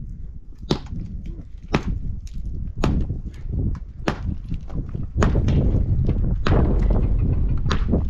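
Repeated sharp strikes of a hand tool, about one a second. A loud low rumble joins about five seconds in.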